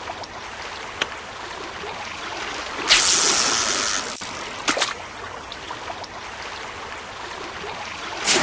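Sea water washing and lapping, a steady hiss with a louder surge of wash about three seconds in that lasts about a second. A few sharp clicks sound over it.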